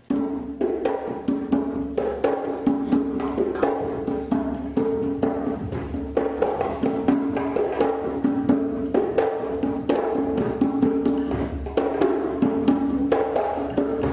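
Maculelê percussion: wooden sticks clacking together in a fast, steady rhythm over drums, starting abruptly.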